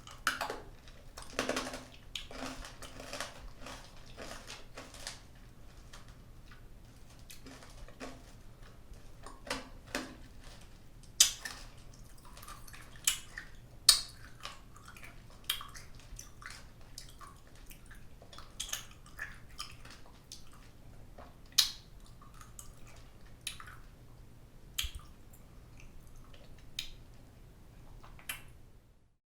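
A person chewing hard candy close to the microphone: irregular crunches and sharp cracks as the candy breaks between the teeth, with wet mouth clicks in between. The crunching is dense for the first few seconds, then comes as scattered single loud cracks.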